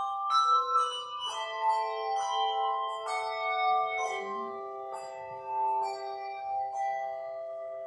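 Handbell choir playing: many bells struck in quick succession, their clear notes ringing on and overlapping into chords.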